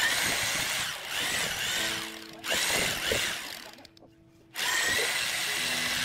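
Corded electric drill with a paddle mixer churning stone adhesive in a plastic bucket, run in three bursts with short pauses, the motor pitch rising as it speeds up each time.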